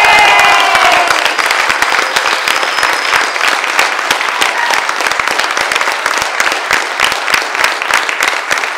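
Audience clapping and cheering, with a few whoops in the first second; the clapping is loudest at the start and eases slowly.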